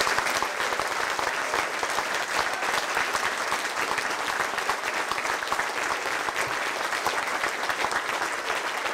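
A large seated audience applauding, a steady dense clapping that holds its level throughout.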